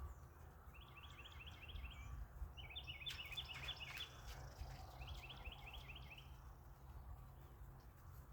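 A songbird singing three short trills of rapidly repeated notes, about a second apart, over a steady low rumble.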